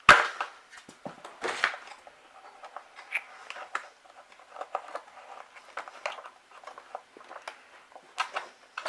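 Handling noises from a 1981 Hoover Junior upright vacuum cleaner being turned over to fit its brush-roll drive belt. There is a sharp knock right at the start, then scattered small clicks, taps and rustles.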